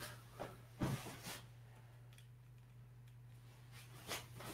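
A few soft thumps and ticks, from the camera being set down and stockinged footsteps on carpet, over a steady low hum.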